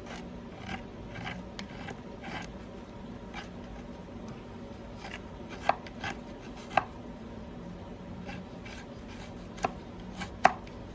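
Folding-knife blade shaving and carving a piece of wood: a run of short scraping strokes, then a few sharp clicks or snaps, the loudest sounds, in the second half.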